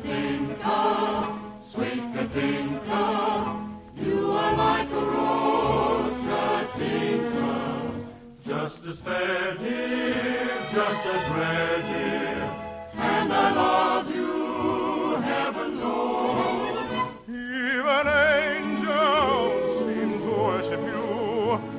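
Choir singing an operetta song with orchestral accompaniment, the voices held on long notes with wide vibrato.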